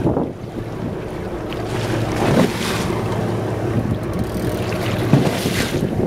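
Motorboat engine running at a steady hum under the rush of wake water past the stern and wind on the microphone, with louder surges of wash or wind about two and a half and five and a half seconds in.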